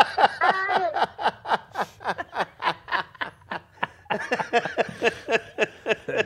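Two men laughing hard together, a fast unbroken run of short laughs several a second.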